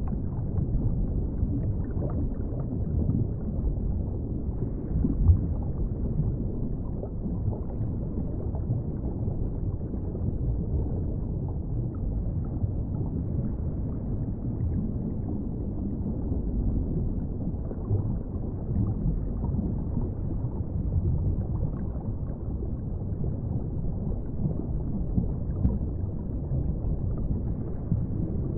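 Underwater ambience: a steady, muffled low rumble of water with no high end, speckled with faint small ticks.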